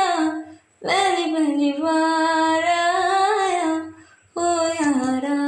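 A female voice singing a Hindi love song unaccompanied, in long drawn-out phrases with two short silent gaps between them; near the end she holds one long steady note.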